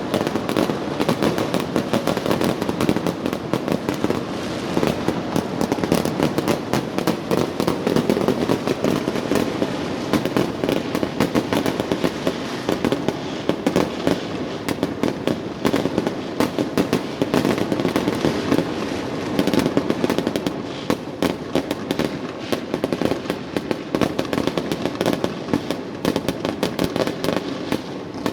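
Fireworks and firecrackers going off in dense, continuous rapid cracks and bangs, with no let-up.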